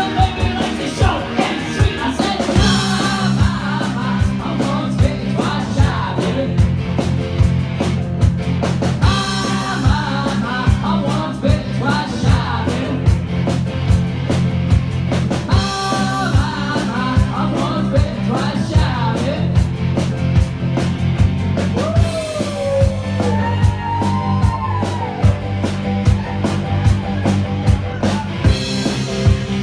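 Live rock band playing: a man singing lead into a microphone over electric guitar and a drum kit keeping a steady beat.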